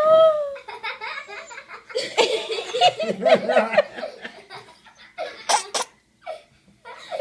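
Baby laughing in bursts: a high-pitched squeal at the start, then a quick run of belly laughs about two seconds in, fading to short giggles and a near-quiet gap toward the end.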